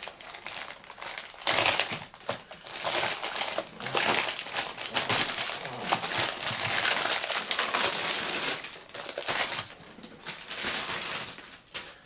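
Crinkling and rustling of a Gundam model kit's packaging and paper assembly sheet being handled, near-continuous from about a second and a half in until about nine seconds, then in shorter rustles.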